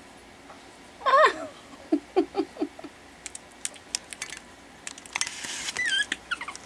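Pekingese puppies whining and squealing as they wrestle: a wavering whine about a second in, four short low grunts just after, then high thin squeaks near the end. Light clicks and scratches from their scuffling come between the calls.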